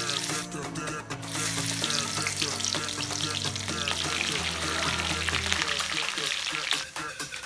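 Onions sizzling as they fry in hot palm oil in an aluminium pot, stirred with a metal ladle. The hiss dips briefly about a second in.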